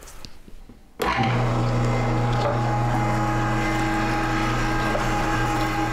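Weston electric meat grinder that starts suddenly about a second in, then runs steadily with a pitched motor hum while grinding meat through its plate.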